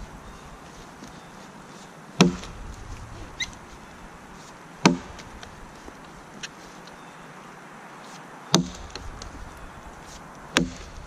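Vintage Kelly True Temper Wood Slasher boys axe, a 2.25 lb Dayton-pattern head on a 28-inch handle, chopping into a downed log: four sharp strikes a few seconds apart.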